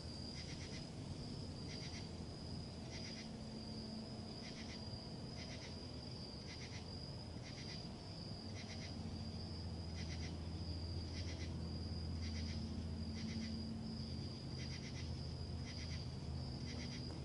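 Night insects calling: one steady high trill, with a short pulsed chirp repeating about every three-quarters of a second. A low steady rumble runs underneath.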